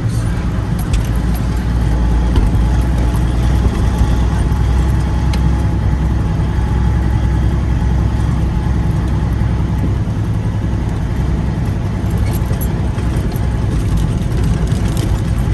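Peterbilt semi truck's diesel engine running steadily at low speed, heard from inside the cab, with a few faint clicks and rattles over the drone.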